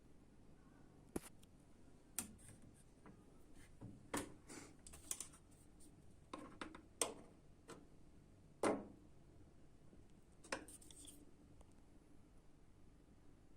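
Scattered light clicks, taps and scrapes at uneven intervals, from hands and tools working on a washing machine's plastic door and handle parts.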